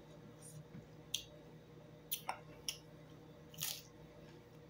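Close mouth sounds of eating: quiet chewing broken by a handful of short, crisp crunches. The loudest crunch, about three and a half seconds in, is a bite into a piece of raw cucumber.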